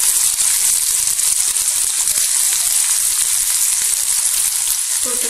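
Chopped shallots frying in hot oil with mustard seeds in a kadai: a steady, high sizzle.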